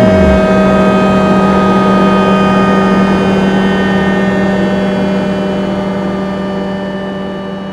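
Suzuki GSX 1250 FA engine's revs falling away right at the start. Then comes a steady hum of several fixed, unchanging tones that slowly fades.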